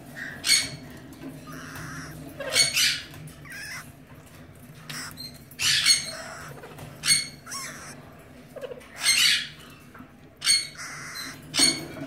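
Alexandrine parakeets squawking: about seven short, harsh calls at irregular intervals, over a faint steady low hum.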